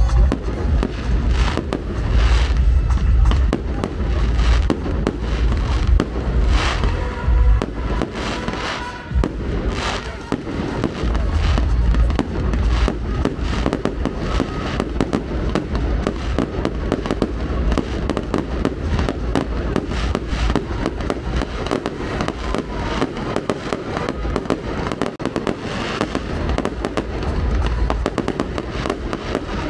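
Fireworks display going off without a break: a dense run of crackling bursts and bangs, with heavier low booms in clusters every few seconds.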